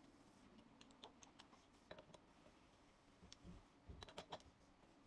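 Near silence with faint, scattered clicks and light taps, a small cluster about four seconds in, from small parts and tools being handled on a workbench.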